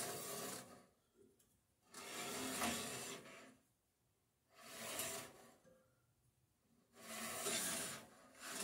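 Dunlap bandsaw's upper wheel turned by hand with a new, untensioned blade on it, giving a rasping rub in bursts about every two and a half seconds. The hand-turning is a check of how the blade tracks on the wheels.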